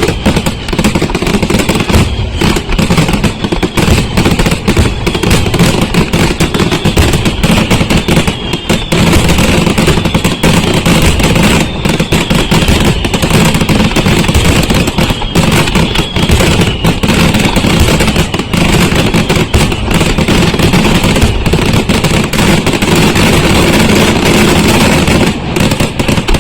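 Aerial fireworks firing as a dense, continuous barrage of bangs and crackling explosions, with short falling whistles heard through it. The barrage stops abruptly near the end.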